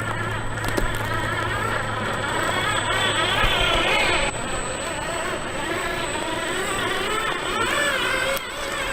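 Electric motor and drivetrain of a 1/10-scale RC trophy truck whining while it drives, the pitch rising and falling with the throttle. The sound changes abruptly about four seconds in and again near the end.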